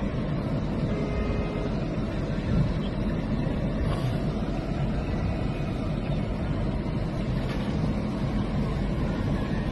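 Steady low rumble of a car in motion, heard from inside its cabin: road and engine noise.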